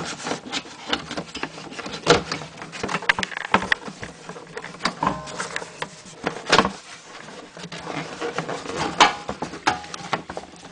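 Irregular clicks, knocks and rustling from hands working rubber vent and purge hoses into place by the charcoal canister.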